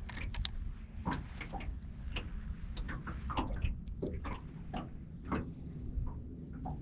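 Scattered light clicks and knocks over a steady low rumble, with a faint steady high whine coming in near the end.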